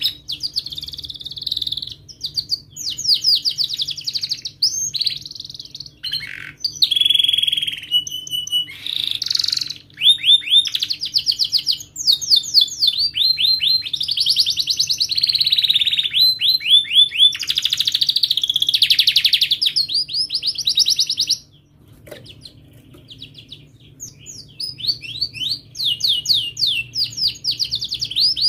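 Domestic canary singing a long, fast song of rapid trills and rolls of repeated notes. It breaks off and goes quieter for a few seconds about three-quarters of the way through, then trills again.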